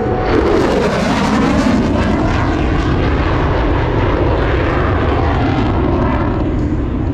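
Loud jet noise from a General Dynamics F-16 Fighting Falcon flying past in a demonstration pass. The pitch falls over the first second or two, then the noise holds as a steady roar.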